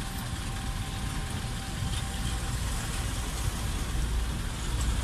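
Dump truck's diesel engine running steadily while its raised tipper bed lowers, a low rumble that grows stronger near the end.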